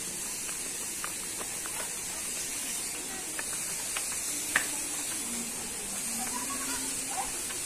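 Steady, high-pitched hiss of outdoor background noise, with faint distant voices and a few small clicks.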